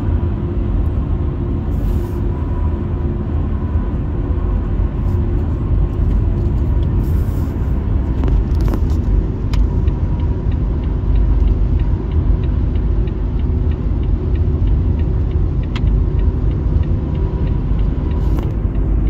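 Car driving at highway speed, heard from inside the cabin: a steady low rumble of tyres and engine.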